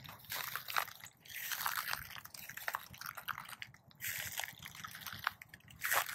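Footsteps crunching and rustling through dry pine straw mulch, a run of uneven steps.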